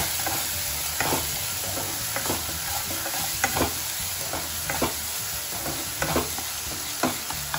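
Spiced onion-tomato masala sizzling in mustard oil in a non-stick kadai while a spatula stirs it, scraping the pan in irregular strokes about once a second over a steady frying hiss.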